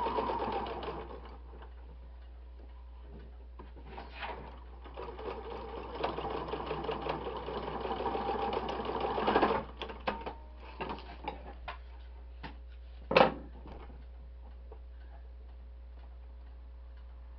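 Electric sewing machine stitching in runs. It stops about a second in, gives a short burst near four seconds, then runs steadily for about four and a half seconds and stops abruptly. A few clicks and knocks follow, one of them sharper and louder.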